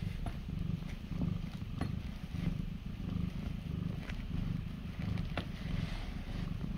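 Domestic cat purring in a low, steady rumble while being stroked, with a few faint ticks and rustles from a hand moving in a soft fabric carrier.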